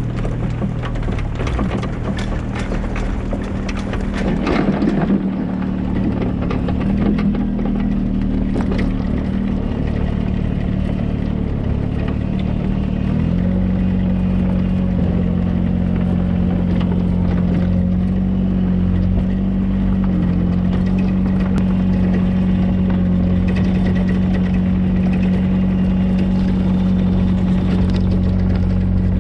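Mini excavator engine running steadily, settling into a stronger, even pitch about halfway through, with clanking and clatter in the first few seconds.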